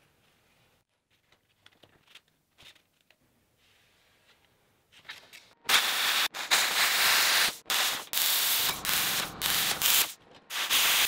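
Hand plasma cutter cutting steel plate: a loud, harsh hiss that starts about halfway in and cuts out and restarts several times as the torch is stopped and triggered again. Before it, near silence with a few faint clicks.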